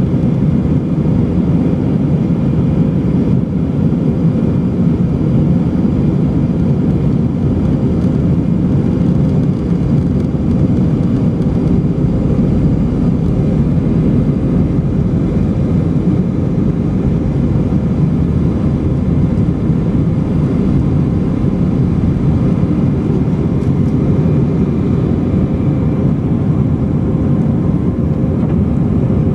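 Airbus A319-100 jet engines at takeoff power, heard from inside the cabin near the rear, a loud steady noise as the airliner rolls down the runway and lifts off.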